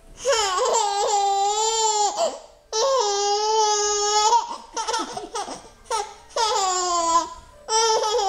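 Five-month-old baby squealing with delight: two long, high squeals of about two seconds each, then three shorter ones.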